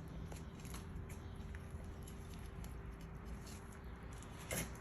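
Fillet knife cutting into a rainbow trout behind the head: faint, scattered crunching and scraping clicks as the blade works through flesh and skin, with one sharper knock near the end.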